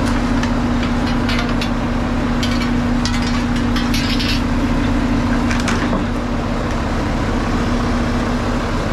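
Garbage truck engine idling steadily, with a few short scrapes and clanks of a metal hook poking at debris in front of the packer blade.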